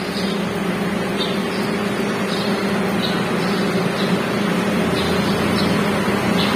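A steady mechanical hum with a low, even drone, and faint scattered light ticks of a screwdriver working the screw terminals of a motor capacitor.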